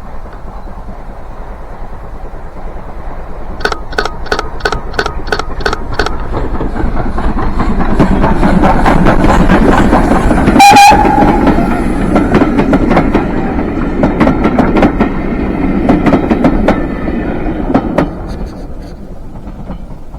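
Steam train passing, getting louder towards the middle and easing off after. A quick run of clicks, about four a second, comes a few seconds in, and a short whistle sounds about halfway through.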